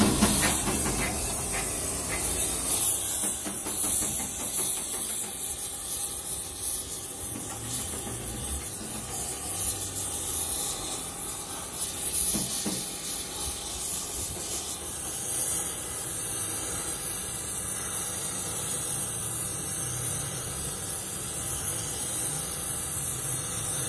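Gas welding torch flame hissing steadily as it heats a cracked cast iron tractor transmission housing.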